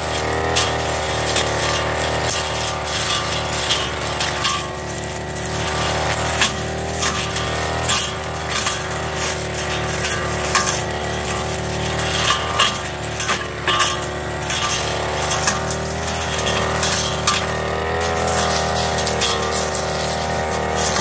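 Backpack brush cutter's small engine running steadily under load, with frequent sharp clicks and crackles as its cutting head chops through thick cogon grass stems.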